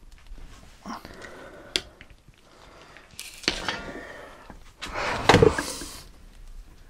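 Gloved hands working a new piston down into its bore in a brake caliper: handling noises with a sharp click, then scraping and rubbing against the caliper body, loudest about five seconds in.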